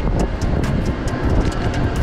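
Outdoor street noise on a body-worn camera microphone: a loud, steady low rumble of wind buffeting the mic and passing traffic, with light ticks every fraction of a second.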